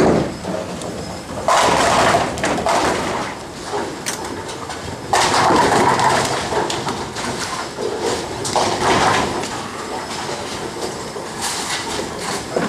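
Bowling balls rolling down the lanes with a steady rumble, and pins crashing and clattering three times, about one and a half, five and eight and a half seconds in.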